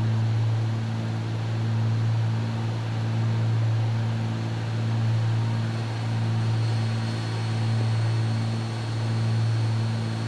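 Cabin drone of a Cessna 310's twin six-cylinder piston engines and propellers in cruise, a deep steady hum that swells and fades about every second and a half.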